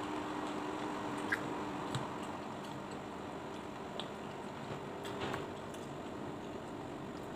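Faint eating sounds: a plastic spoon scooping rice porridge from a plastic bowl, with a few light clicks and soft chewing, over a steady low hum.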